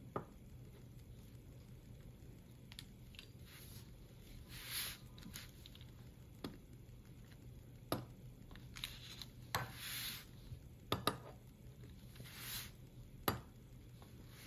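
A metal pizza cutter wheel rolling through sheets of pastry on parchment paper over a wooden board. It makes a few soft swishing strokes as it cuts, with about six sharp clicks and taps as the cutter meets the board.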